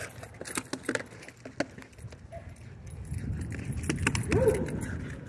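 Metal jingling and clicking from a running dog's gear, its collar and the ratchet-strap bottle toy it carries, as a German Shorthaired Pointer gallops about. About four seconds in, a louder low rush comes with a short wavering pitched sound.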